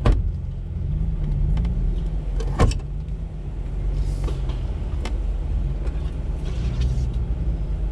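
A Jeep engine running steadily at low speed, with two sharp knocks: one right at the start and one about two and a half seconds in.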